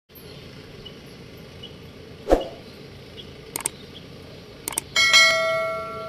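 Subscribe-button animation sound effect: a short whoosh, two quick pairs of mouse clicks, then a notification bell ding that rings on and fades, all over a steady low hiss.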